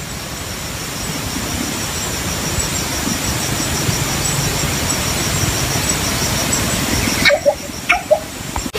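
Philippine coucal giving a few short, low hooting notes near the end. Before them there is a steady hiss with a fast, high-pitched pulsing behind it.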